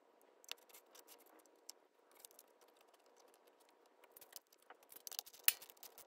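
Faint clicks and taps of a small round aluminium side cover being fitted onto a 125cc Chinese ATV engine's cylinder head, then a quicker run of metal clicks near the end as its bolts are started with a wrench.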